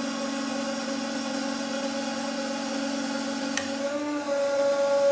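Hydraulic press pump running with a steady hum as it drives a knife blade into a steel cable. There is a single sharp click about three and a half seconds in, and the hum changes pitch soon after.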